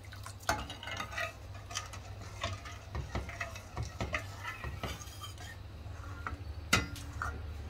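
A metal ladle stirs thick milk in a stainless steel kadai, scraping and clinking against the pan at irregular moments, with one sharper clink near the end.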